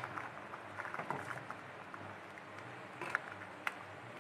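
Steel ladle stirring ground coconut paste into a simmering gravy in a pressure cooker, with a few faint clinks of the ladle against the pot.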